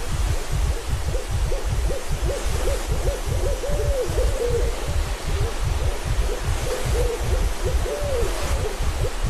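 Owl-like hooting: a long run of short hoots at about one pitch, a few gliding up and down, over a steady low rumble.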